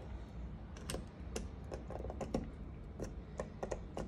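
Wall light switch flicked on and off over and over, about a dozen quick plastic clicks in uneven runs; the room light does not come on.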